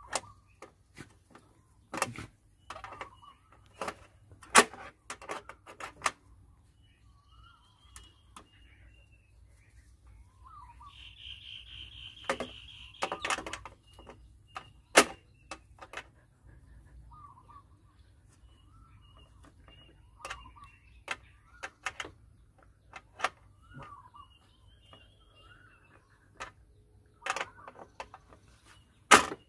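Scattered clicks and taps from a screwdriver and plate frame as a licence plate is fastened to a motorcycle's rear, with birds chirping in the background.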